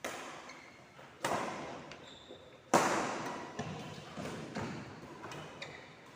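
A basketball bouncing hard on a gym floor, three loud thuds with echoing tails, the third the loudest, with a brief high squeak about two seconds in.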